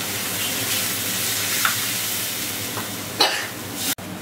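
Fried curry masala sizzling in oil in a pan and being stirred as water is added for the gravy. A sharp clatter comes about three seconds in, then the sound breaks off abruptly just before the end.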